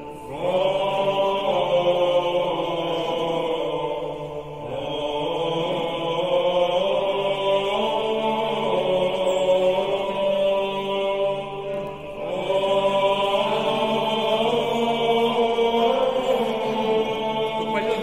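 Slow choral chanting: voices holding long notes over a low held drone, phrase by phrase, with short breaths between phrases about four and twelve seconds in.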